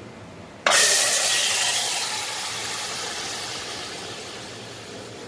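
Yogurt-marinated chicken dropped into a hot steel pan, sizzling: a sudden loud hiss about a second in that slowly dies away.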